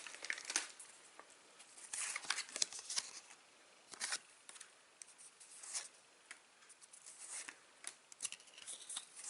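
Football trading cards handled and slid past one another, making faint, short swishes and clicks at irregular moments with pauses between.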